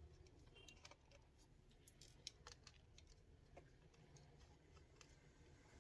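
Near silence with a few faint, scattered clicks and taps: small plastic and metal parts of a laptop being handled as it is taken apart.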